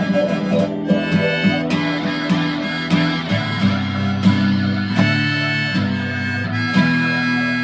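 Guitar played through a small VOX amp together with harmonica, the harmonica holding long notes over picked and strummed guitar chords in an instrumental passage.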